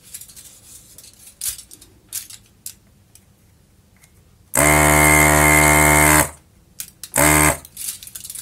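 Electric desoldering tool's vacuum pump buzzing as it sucks solder off the motor board's terminal posts: one steady buzz about a second and a half long about halfway through, and a short one near the end, amid small clicks of handling.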